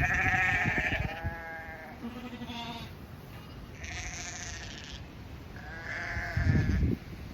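Sheep bleating, about four wavering calls one after another, with a low thump or rumble near the end.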